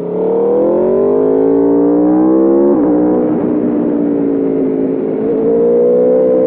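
2021 Aprilia RSV4 Factory's V4 engine pulling hard, its note climbing for nearly three seconds, then dropping sharply at an upshift and holding a steadier note.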